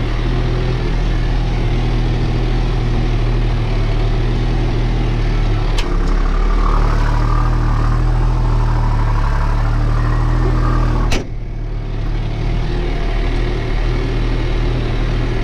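New Holland TT4.65 tractor engine running steadily under load, pulling a mounted plough through the soil at about 1500–1600 rpm, heard from inside the cab. A click sounds about six seconds in, and about eleven seconds in the sound breaks off sharply and dips briefly before the same steady running resumes.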